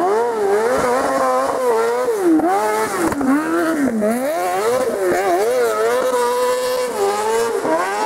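Kart cross buggy's 600 cc motorcycle engine revving hard at high rpm, its pitch climbing and dropping again and again as the driver accelerates, lifts off and shifts gear.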